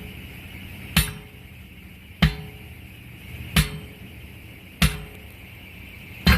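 Heavy hammer blows on a stubborn semi-truck tire during a tire change: five sharp strikes about 1.3 seconds apart, each with a short metallic ring.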